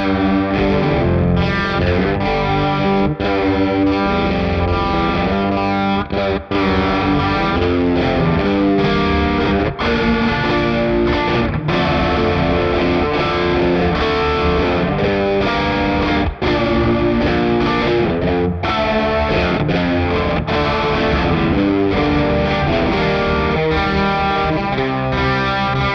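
Electric guitar played through an EarthQuaker Devices Aqueduct vibrato pedal into a Fender Deluxe Reverb amp, with chords and melodic lines given a warping pitch wobble by the engaged pedal.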